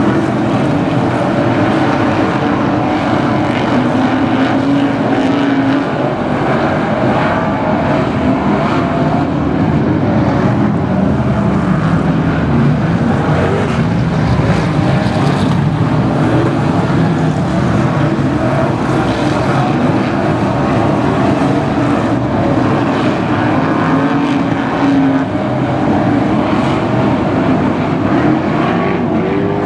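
Several BriscaF1 stock cars' V8 engines running together, a steady, loud rumble with no sharp revving.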